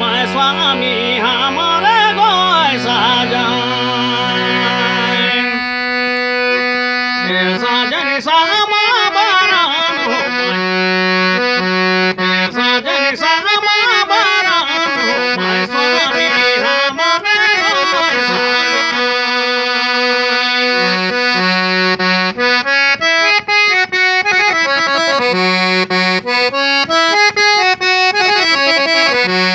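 Instrumental passage of a folk song: a free-reed keyboard instrument plays a stepping melody over held low notes. A sung phrase trails off in the first two or three seconds.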